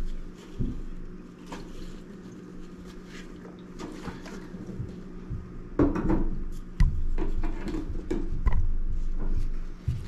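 Handling noise of a metal tin of enamel reducer and a cloth rag on a wooden counter: scattered small clicks and rustles, busier from about six seconds in, with one sharp knock near seven seconds, over a steady low hum.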